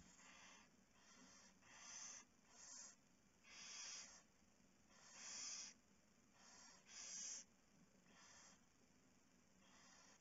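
Barn owl giving a series of harsh, hissing snore calls, about ten in all, each roughly half a second long, unevenly spaced and varying in loudness.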